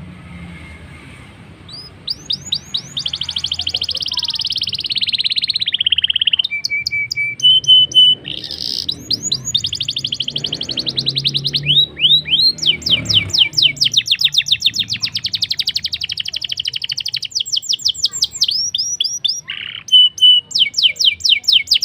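Blackthroat (black-throated canary) singing a long, fast trill of rapid down-slurred notes, broken by a few short steady whistles. It starts about two seconds in.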